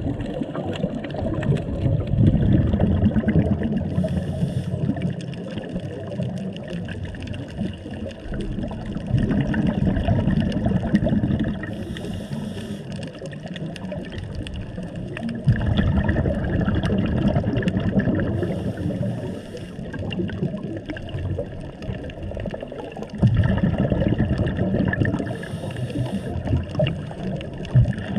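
Scuba diver breathing through a regulator underwater: exhaled air bubbling out in rumbling surges, with a short hiss of each inhalation, about four breaths at roughly seven-second intervals.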